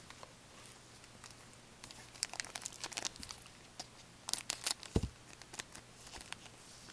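Faint crinkling and rustling of hockey card pack wrappers and cards handled in latex-gloved hands, scattered small crackles that are busiest in the middle, with a soft knock about five seconds in.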